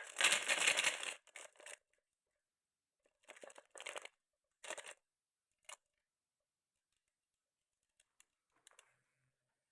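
Marbles rolling along a wooden marble run track. A dense rattling run fills the first second, then come shorter bursts of rolling a few seconds in, a sharp click near the middle, and a few faint ticks near the end.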